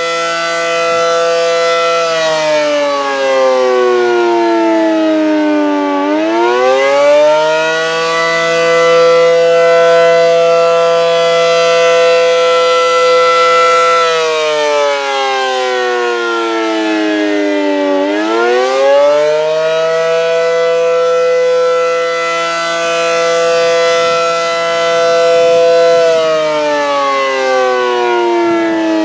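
ACA Allertor 125 electronic outdoor warning siren sounding the attack signal: a loud, many-toned siren note that holds steady for about six seconds, slides down in pitch over about four seconds, then climbs back up within about two. The cycle runs twice, and the pitch starts falling again near the end.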